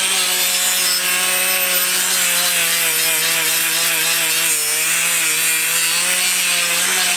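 Power tool spinning a red sanding disc against a steel handle piece held by hand: a steady motor tone under a loud hiss of abrasion. The motor's tone drops a little about two seconds in.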